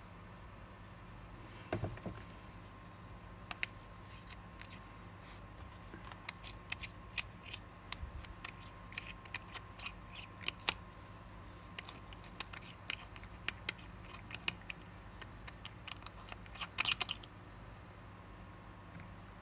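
Light clicks and scrapes of metal and glass as a wristwatch case is handled and its display caseback is opened. A denser burst of scratchy clicks comes about seventeen seconds in.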